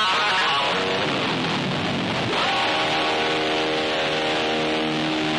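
Electric guitar played live in a rock band. From about halfway, a held chord of several sustained notes rings on.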